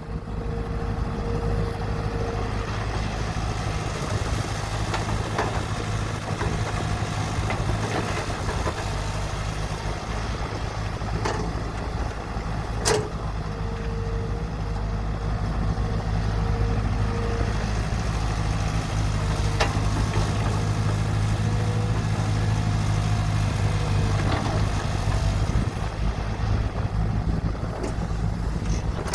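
Excavator engine running steadily under work, with an on-and-off whine and a few sharp clanks; it grows a little louder about halfway through.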